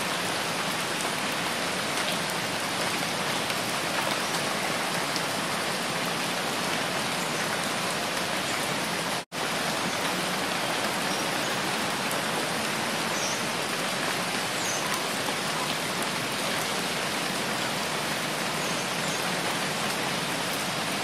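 Steady rain for a sleep-sound track: an even hiss. It cuts out for an instant about nine seconds in, then resumes unchanged.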